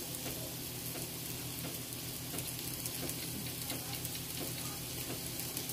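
Vegetables cooking in butter, sizzling steadily in a pan on the heat, with fine crackles and a steady low hum underneath.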